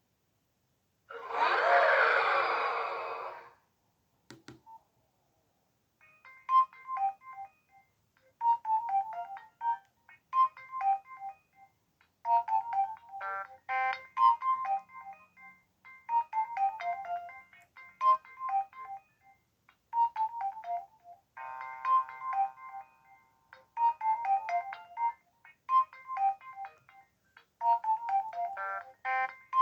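Nokia 1680 classic mobile phone playing a polyphonic ringtone through its small built-in loudspeaker: a short melodic phrase of bright synthesized notes repeating about every two seconds, starting about six seconds in. Before it comes a loud burst of noise lasting about two seconds.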